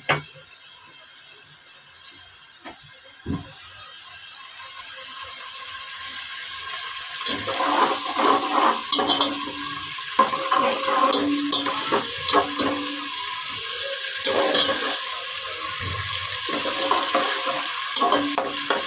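Sliced onions sizzling in ghee in an aluminium pot, the sizzle growing steadily louder. From about seven seconds in, a metal slotted spoon stirs and scrapes against the pot.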